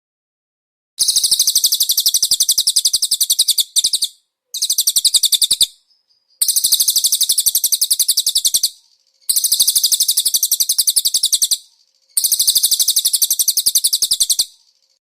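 Cililin song: a very rapid, high-pitched trill of repeated notes, given about five times in bursts of roughly one to two and a half seconds with short pauses between.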